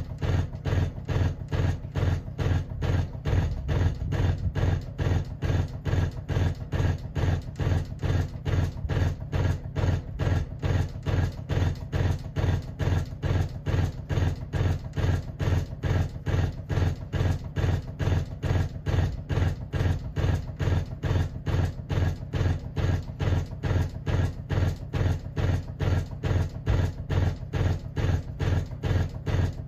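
Emerson friction-drive ceiling fan running with a loud, even beat of about three thumps a second over a low hum. It is a noisy fan that balancing did not cure.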